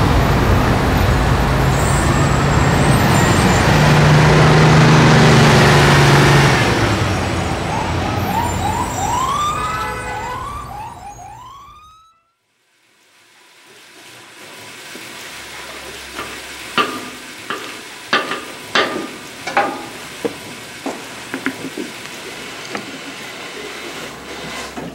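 Loud traffic noise with a low engine drone, then a siren sounding in quick, repeated rising-and-falling sweeps that cut off abruptly. After a moment of silence comes a quieter stretch with a scattering of sharp clicks and knocks.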